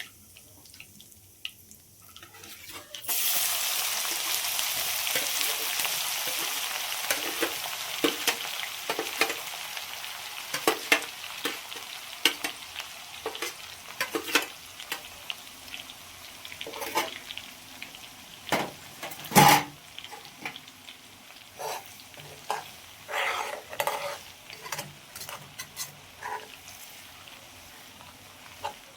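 Food dropped into hot oil in a cooking pan: a sudden loud sizzle about three seconds in that slowly dies down, while a spatula stirs and scrapes the pan with repeated clicks and one sharp knock.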